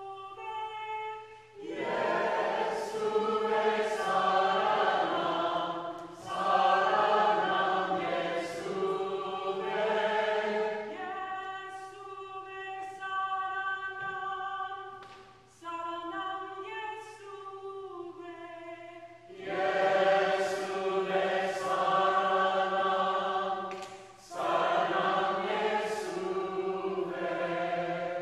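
A group of men and women singing a Hindi hymn together. Fuller, louder passages alternate with a thinner, quieter stretch in the middle.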